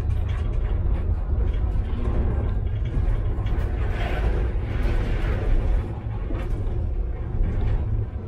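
Tram running along the track: a steady low rumble with scattered clicks and knocks from the wheels and rails. About four to five seconds in, a swell of hissing noise rises and fades.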